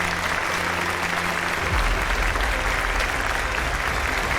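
Audience applauding steadily after a winner is announced.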